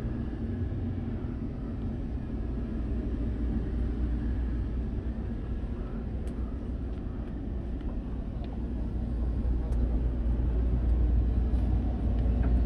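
Steady low rumble of machinery running aboard a yacht, heard inside the cabin, with a few faint clicks.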